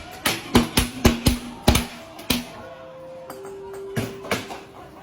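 A rapid string of sharp bangs and knocks, blows landing every fraction of a second, then a steady tone stepping down in pitch with a few more knocks.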